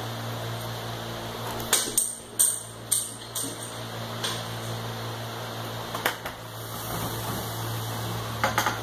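A tossed poker chip clattering down the stairs: a run of sharp clicks and taps starting about two seconds in and growing sparser, with a few more taps later. A steady low hum runs underneath.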